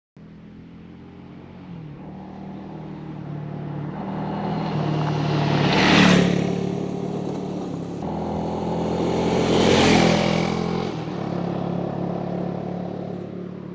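Motor vehicle engine running steadily, with two swells that build to a peak about six seconds in and again about ten seconds in and then fade, like vehicles passing close by.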